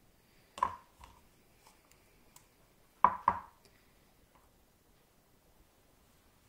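Small handling knocks and clicks of hands working with craft things on a tabletop: one tap about half a second in, then two sharp clicks about a third of a second apart about three seconds in, as a plastic glue bottle is picked up.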